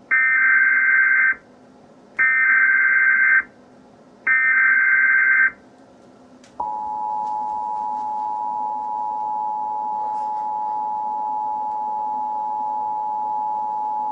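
Emergency Alert System SAME header: three short bursts of warbling digital data tones, each about a second long with a second's gap between them. About six and a half seconds in, the steady two-tone EAS attention signal starts and holds to the end, the tones that precede a spoken warning.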